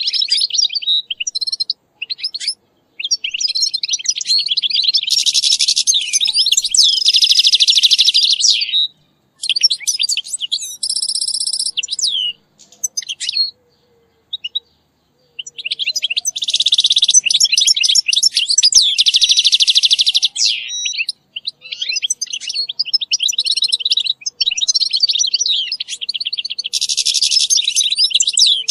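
European goldfinch song: long twittering phrases of rapid chirps and buzzy trills, with short breaks about 9 and 14 seconds in.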